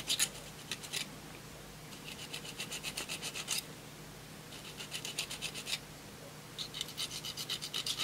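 Diamond file rubbed back and forth over the copper contact of a brake light switch plunger, in several short runs of quick strokes with brief pauses between. The file is smoothing off pitting and lumps that left the contact barely touching, so the switch was not shutting off fully.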